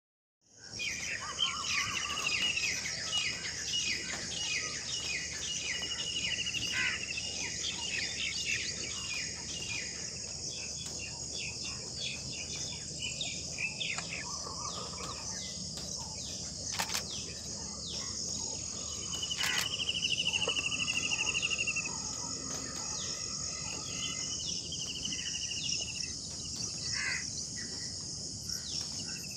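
Wild birds calling over a steady high hiss: a quick run of short descending chirps through the first third, then a rapid buzzing trill about two-thirds of the way in, with scattered lower calls.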